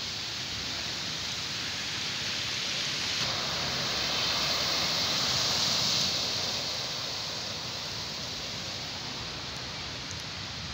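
Steady hiss of heavy rain. A pickup truck drives through flood water on the road, and the rush of spray from its tyres swells up about halfway through and fades away.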